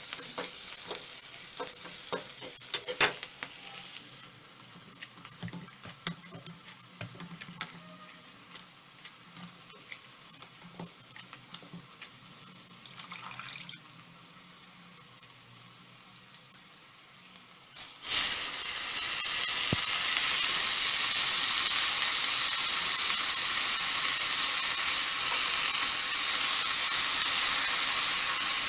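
Food frying in a pan: a spatula knocking and scraping as it is stirred, then about two-thirds of the way in a sudden, loud, steady sizzle starts and keeps going.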